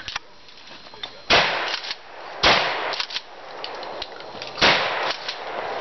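Shotgun firing three shots, about a second in, a second later, and two seconds after that, each with a short echoing tail. Smaller clicks follow each shot.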